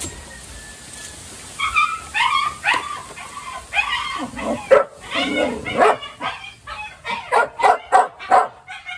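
Dog barking and yipping excitedly at a rat caught in a wire cage trap. The cries begin a second or two in and come faster, in sharp barks, near the end.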